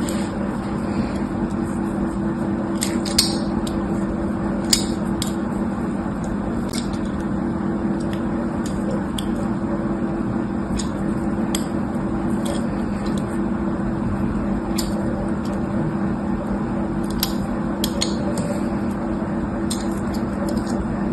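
Scattered sharp snips and clicks, a few seconds apart and strongest about three and five seconds in, like scissors cutting into balloons during slime-making, over a steady low hum.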